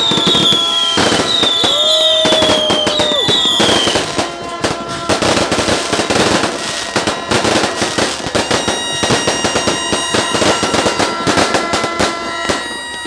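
Fireworks crackling and popping densely and without pause, with several falling whistles in the first few seconds. Steady horn-like tones sound over the crackle in the second half.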